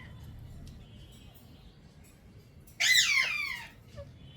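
Indian ringneck parrot giving one loud call, falling steeply in pitch, lasting under a second about three seconds in.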